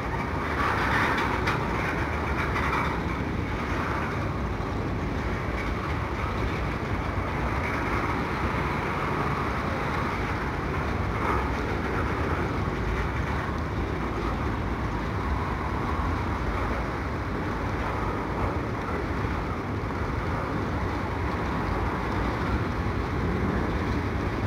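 Freight train of covered hopper cars rolling past at trackside: a steady noise of steel wheels running on the rails.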